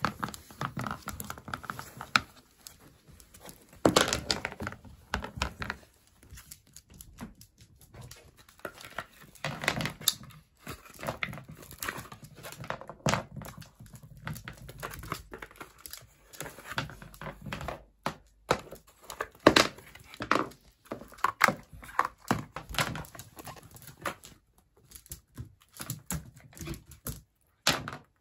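A Jack Russell Terrier puppy biting and pawing at a plastic toy package, which crinkles in irregular bursts along with scattered knocks and thuds.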